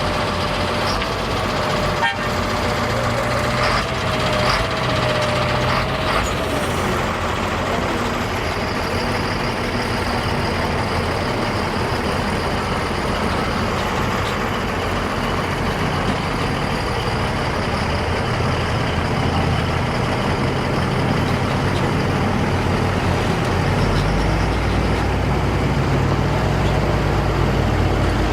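Steady motor-vehicle and road-traffic noise with a low engine rumble, which grows heavier near the end.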